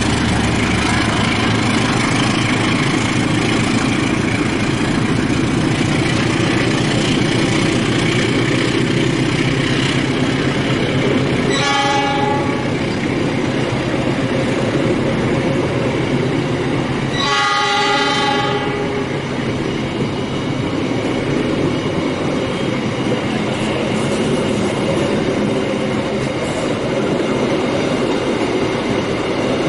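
Diesel train running through a station with a steady noise of engine and wheels. The locomotive's horn sounds twice: a short blast about twelve seconds in and a longer blast of about a second and a half some five seconds later.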